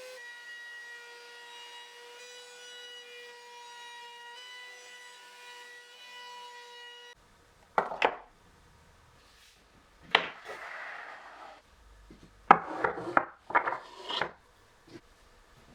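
Sustained tones that step in pitch, like a background music bed, stop abruptly about seven seconds in. They are followed by several short, sharp bouts of wood rubbing and scraping, as cut plywood parts are worked by hand.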